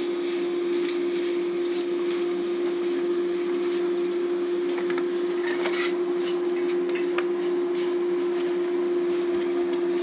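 Refrigerator running with a steady hum on one held tone, with a few faint light knocks about six seconds in.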